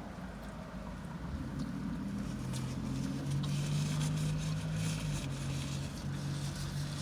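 A vehicle engine's steady low hum, heard from inside a car, swelling about two seconds in and then holding level, with light crackling over it in the middle.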